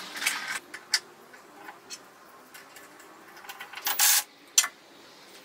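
Cordless drill/driver run in one short burst at the bandsaw's blade guide, followed by a sharp click; lighter clicks and knocks of handling parts come before it.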